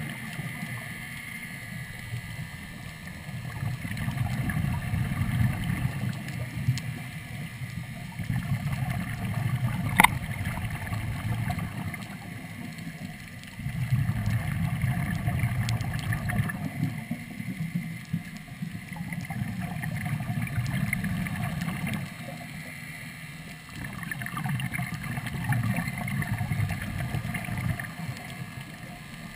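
Underwater breathing through a third-lung hookah regulator: exhaled bubbles bubbling in regular swells every four to five seconds between quieter inhalations. A single sharp click comes about ten seconds in.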